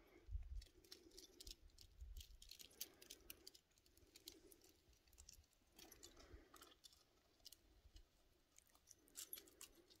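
Near silence, with faint scattered ticks and light rustles.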